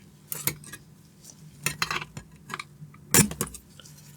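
Sharp metal clicks and clinks of a screwdriver working the console's sprung metal X-clamp loose, an irregular scatter of ticks with the loudest about three seconds in.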